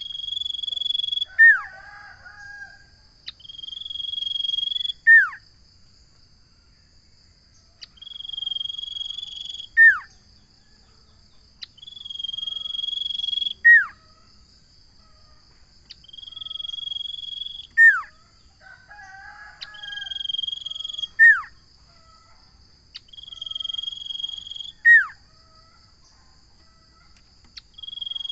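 Common iora (cipoh) singing: a long held whistle ending in a sharp downward-slurred note, repeated about every four seconds, eight times. A steady high background buzz runs beneath it.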